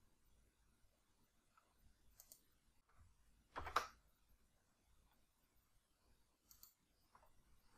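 A few faint computer mouse and keyboard clicks over near silence, with one louder clack about three and a half seconds in.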